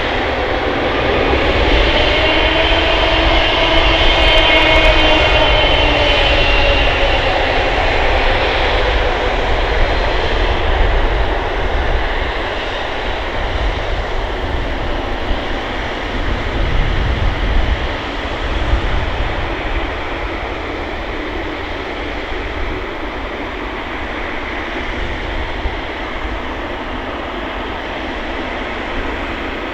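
Jet engines of a Boeing 777-300ER (GE90-115B turbofans) as the airliner passes. Their whine rises and falls over the first several seconds, the noise is loudest about five seconds in, and then it settles into a steady rumble that slowly eases.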